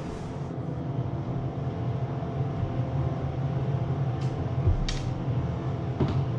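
Steady low hum, with a few small sharp clicks in the second half as a screwdriver works the screws of a wall outlet's cover plate.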